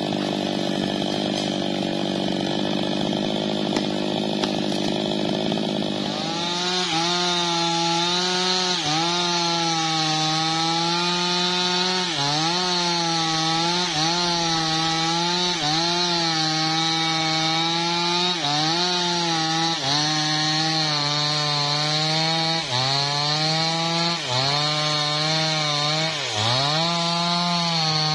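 Maestro MT 6500 two-stroke chainsaw running at a steady high pitch, then from about six seconds in cutting through a teak log. Its pitch sags and recovers every second or two as the chain bites under load, and it drops as the throttle is let off near the end.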